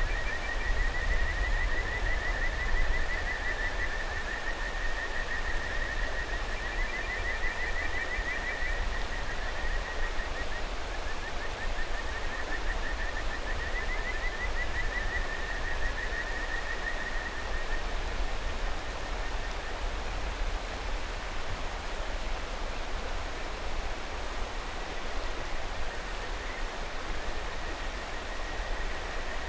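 Kajika frogs (Buergeria buergeri) calling: fast, high trilled pulse-trains, several frogs overlapping, through the first half, then only faint calls near the end, over the steady rushing of a mountain river.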